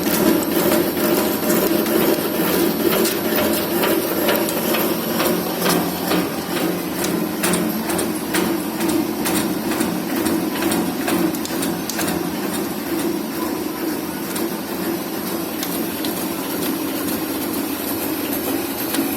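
Workshop metalworking machinery running with a steady hum and many rapid, irregular metallic clicks and knocks.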